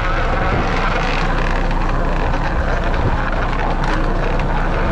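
A crab-fishing boat's engine and deck machinery running steadily, a constant drone that does not change.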